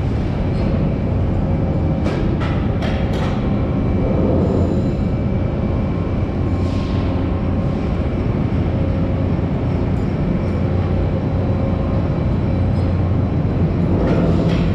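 Overhead bridge crane running, a steady low mechanical rumble, with a quick run of sharp clanks about two to three seconds in and another near the end.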